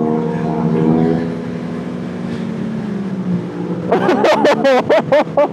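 Inline-four sport bike engines running steadily at speed, easing off slightly. Near the end comes a rapid run of sharp pops with the revs swooping up and down, typical of a full-system exhaust backfiring on throttle blips.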